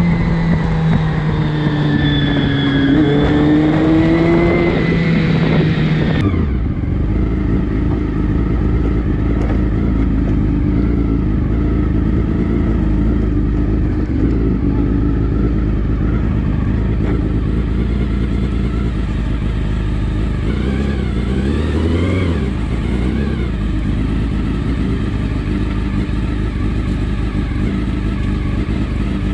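Honda CBR400 inline-four engine in a sport bike, first running under way with its pitch easing, rising and falling as the throttle changes. After a sudden cut about six seconds in, it idles steadily, with one brief rev about three-quarters of the way through.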